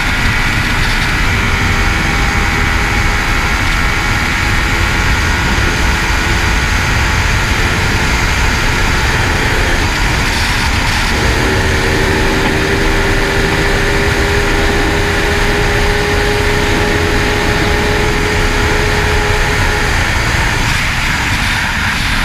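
Heavy wind rush over the microphone with a superbike's engine running at steady high speed, about 266 km/h. The engine note holds a constant pitch through the middle stretch.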